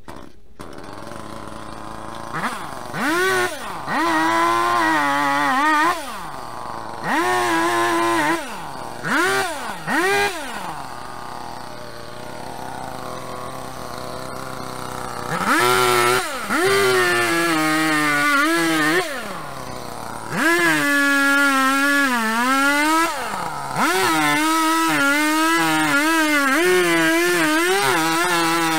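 A chainsaw revving in several short bursts, then held at high speed for longer stretches as it cuts into a stump's roots, with quieter idling between. The pitch sags under load during a cut and recovers.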